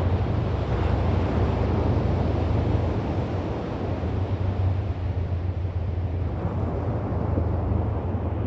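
Wind blowing across the microphone, a steady low rumble, over the wash of ocean surf.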